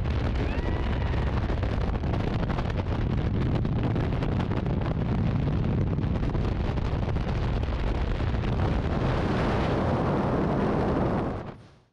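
Freefall wind rushing over and buffeting the camera microphone in a tandem skydive: a steady, dense rush strongest at the low end, fading out in the last moment.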